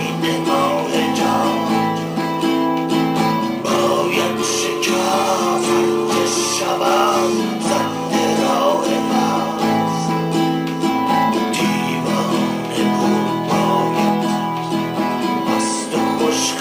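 A voice singing a Persian song over strummed acoustic guitar.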